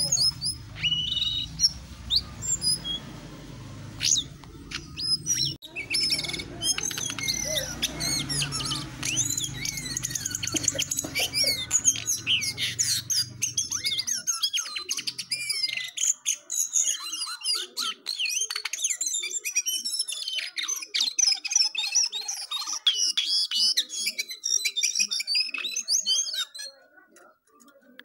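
A caged jongkangan songbird singing a long, rapid, varied run of chirps, whistles and trills that cuts off suddenly near the end. A low steady rumble sits under the first half.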